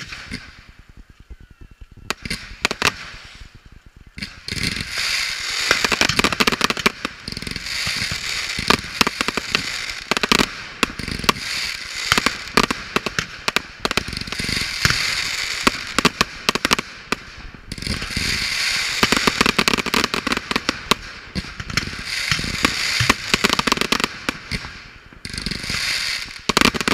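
Fireworks display: sharp bangs and dense crackling from aerial shells. A few separate bangs at first, then from about four seconds in a near-continuous barrage that eases briefly a few times.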